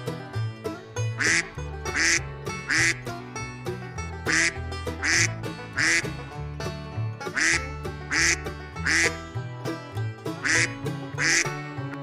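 Duck quacking in sets of three, about one quack a second, with a pause between sets, over background banjo music.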